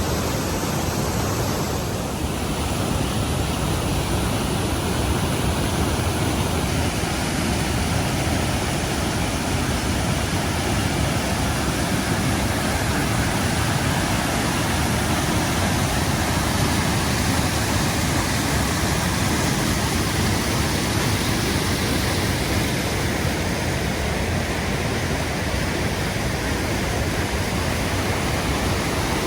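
The cascade on McDonald Creek, water rushing steadily and unbroken.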